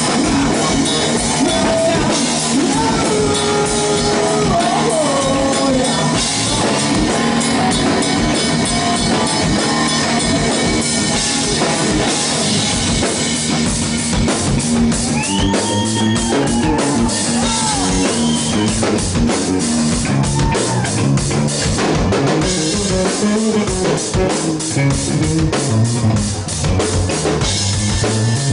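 Hard rock band playing live: electric guitars over a drum kit with steady beats, with pitched lines bending up and down in the middle of the passage.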